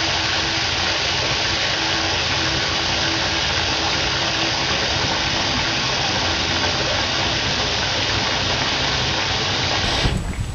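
A steady, even rushing noise with no changes in level, which cuts off abruptly about ten seconds in.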